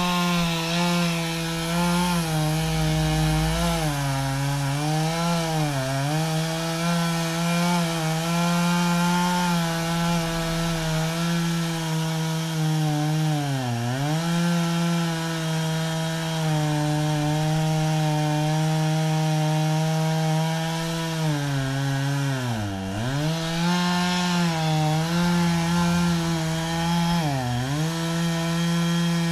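Gas chainsaw running at high speed while cutting into a tree trunk. Its engine pitch dips briefly a few times as the chain bogs under load, the deepest dip about three quarters of the way through, and comes straight back up each time.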